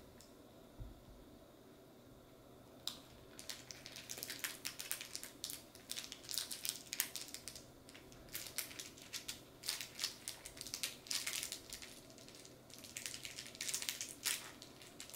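A Pomeranian chewing and mouthing a plush mushroom toy, making quick, irregular crackling that starts about three seconds in and keeps on in uneven flurries.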